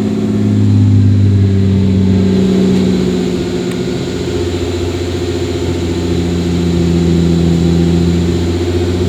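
Toyota 2JZ-GTE twin-turbo straight-six idling through its Blitz Nur Spec exhaust, its idle speed drifting up and down: a hunting idle on an engine not yet fully warm.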